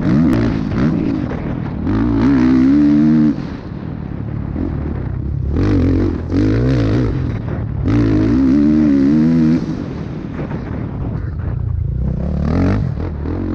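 Motocross dirt bike engine heard from on board during a lap, revving hard in repeated bursts of throttle and easing off between them.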